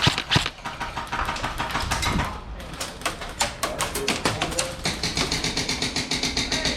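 Airsoft guns firing: scattered sharp cracks early on, then a long fast string of clicks in the second half like full-auto fire.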